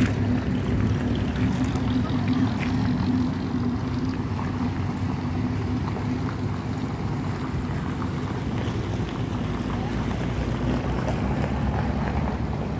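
A vehicle engine idling, a steady low hum under wind noise on the microphone, easing a little about three seconds in.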